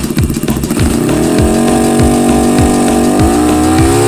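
Motorcycle engine revving up about a second in, then held at high revs, steady, edging a little higher near three seconds.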